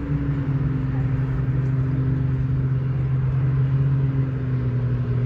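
A motor engine running with a steady low hum, its pitch drifting only slightly.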